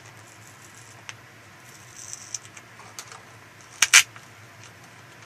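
Hands working at a laptop LCD panel's connector and its tape backing: faint scratches and ticks, with one sharp, loud crackle about four seconds in.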